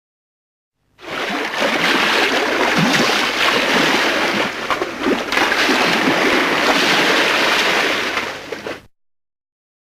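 Water splashing and sloshing continuously for about eight seconds, starting a second in and cutting off abruptly.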